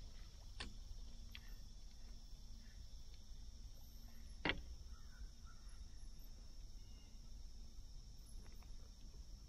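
Quiet riverside ambience: a low rumble and a steady high hiss, with a few light clicks and one sharp knock about halfway through.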